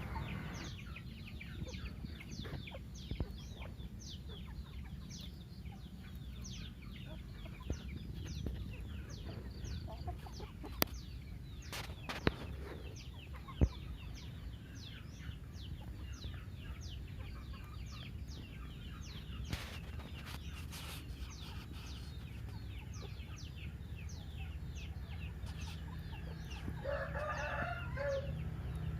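Free-range chickens calling while foraging: many short, high chirps throughout, a few sharp clicks and a louder call near the end, over a steady low rumble.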